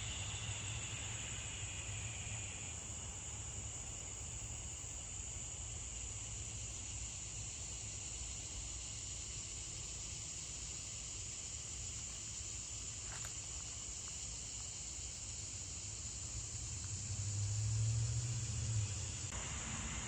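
Evening chorus of crickets, a steady high-pitched trill, with a second lower insect trill that stops about three seconds in. Underneath runs a low rumble that swells briefly near the end.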